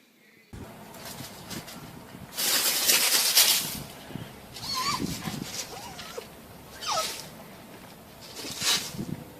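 A puppy giving short, high, falling whimpers a couple of seconds apart, after a loud rustling noise about two and a half seconds in.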